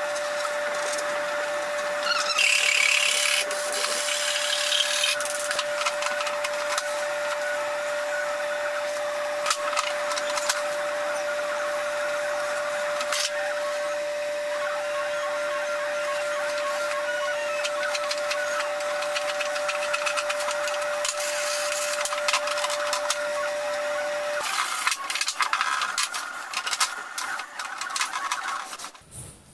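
A small electric motor running steadily at one pitch, with scattered clicks over it, stops about 24 seconds in. Irregular handling clatter follows.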